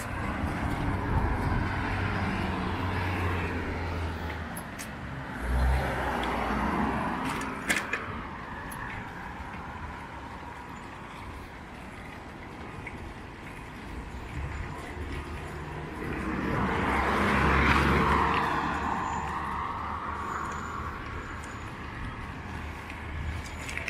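Road traffic: cars passing, their tyre and engine noise swelling and fading, with the loudest pass about two-thirds of the way through. A couple of sharp clicks come about a third of the way in.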